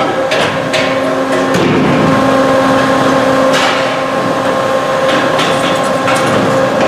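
Catalytic converter guillotine cutting machine running with a steady hum, with several sharp metal clanks as catalytic converters are handled and knocked about inside it.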